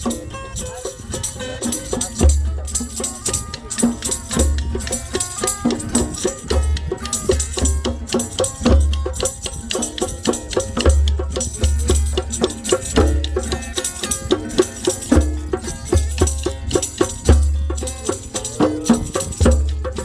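Middle Eastern-style folk music with a steady drum rhythm, jingling tambourine-like percussion and a melody.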